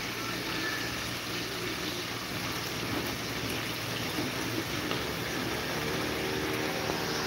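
Pot of crabs and broccoli sizzling steadily on the stove as the cooking liquid cooks down nearly dry.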